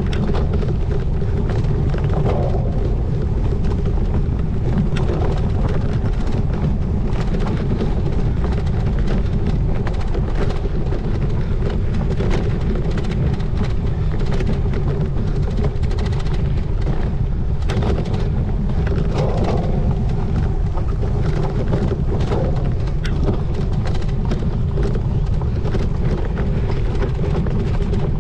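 Wind rumbling steadily on the microphone while a cyclocross bike is ridden over rough ground, with frequent rattles and knocks from the bike over the bumpy course.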